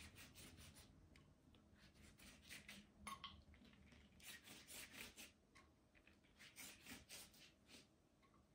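Faint, repeated strokes of a silicone pastry brush spreading melted butter and oil over a thin sheet of dough, with a single light tap about three seconds in.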